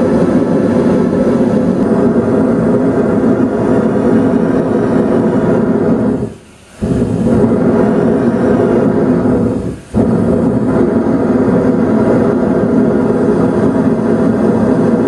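Gas forge burner running at full heat with steady, loud flame noise while the gas-to-air mix is being tuned. The noise drops away twice, briefly, about six and ten seconds in.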